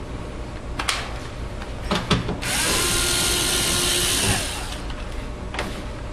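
Power drill/driver spinning up, running for about two seconds and winding down as it backs out a screw from the refrigerator's compressor and condenser-fan compartment cover, with a few sharp clicks before it.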